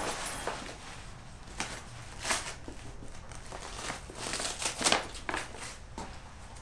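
Nylon straps and fabric of an armored backpack rustling and swishing as it is slung onto the shoulders and adjusted, with irregular knocks and brushes; the loudest rustle comes a little before five seconds in.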